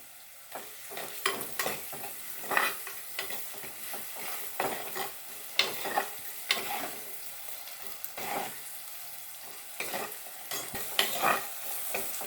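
Fenugreek seeds frying in hot oil, sizzling steadily, with a spoon stirring and scraping the pan about once a second.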